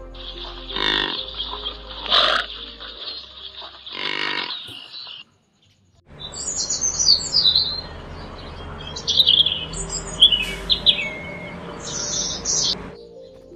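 Repeated grunting calls of a large animal, then a brief silence about five seconds in. After the silence, a big flock of birds calling: many short high chirps over a steady rushing hiss.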